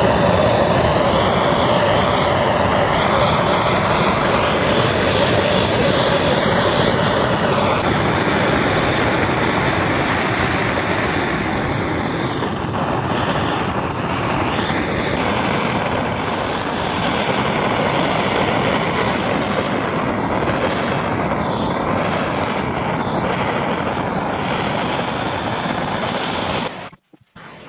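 Hand-held gas torch flame burning with a steady rushing hiss as it chars the surface of a wooden plank; it cuts off suddenly near the end.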